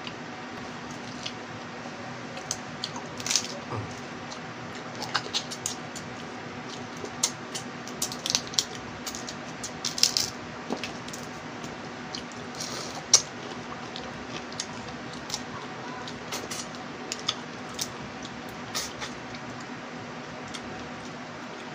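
Eating sounds of a person eating small cooked crabs and rice by hand: irregular crackles and snaps of crab shell, with wet chewing and finger-picking noises. A steady low hum runs underneath.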